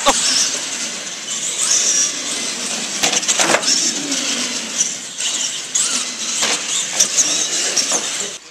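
Radio-controlled monster trucks racing on a concrete track, giving a dense high-pitched buzz and hiss of motors and tyres. Several sharp knocks come through it, and the sound cuts off abruptly near the end.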